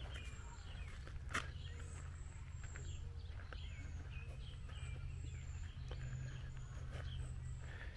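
Summer outdoor ambience: birds chirping and twittering, with a thin, high insect buzz that comes and goes, over a steady low rumble. A single sharp click about a second and a half in.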